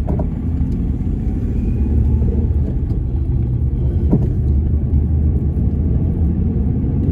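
Ford Ranger pickup driving, heard from inside the cab: a steady engine and road rumble on a test drive after a new ignition coil was fitted for a cylinder-4 misfire. A brief click about four seconds in.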